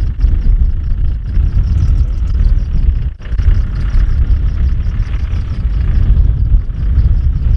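Wind buffeting the microphone in a heavy, gusting rumble, over a Land Rover Discovery's engine running as the vehicle crawls down a wet, rutted track. The rumble dips briefly about three seconds in.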